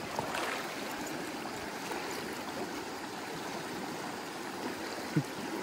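Mountain stream flowing steadily, an even rush of water.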